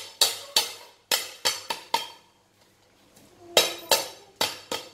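A large kitchen knife chopping lemongrass on a thick round wooden chopping board: a run of sharp knocks in quick groups, with a pause of about a second and a half in the middle.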